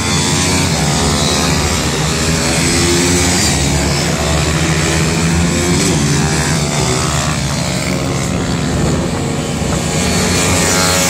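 Several small four-stroke pit bike engines from the 160 cc class racing together, steady and loud, their pitches rising and falling as the riders work the throttle.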